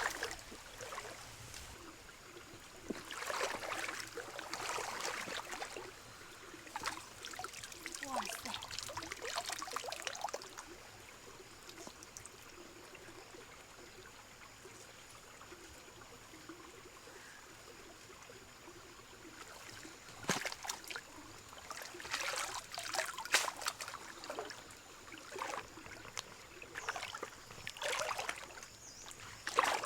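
Water splashing and trickling in several bouts a few seconds long, with quieter stretches between.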